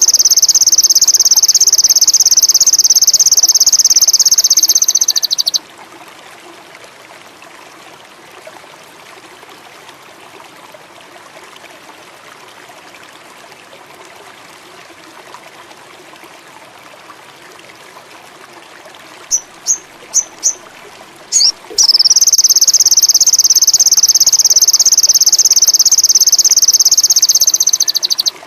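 A small songbird, the sogon indigo, singing a long, loud, rapid high-pitched trill that stops about five and a half seconds in. After a pause it gives four short chirps, then a second long trill of about six seconds that cuts off at the end, over a faint steady hiss.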